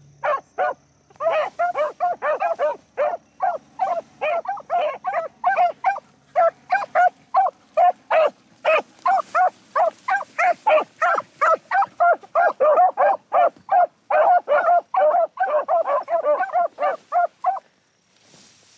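Beagles baying on a rabbit's trail: a fast, steady string of short barks, about three a second and at times overlapping, that stops shortly before the end. The hounds are giving tongue on the scent while running the rabbit.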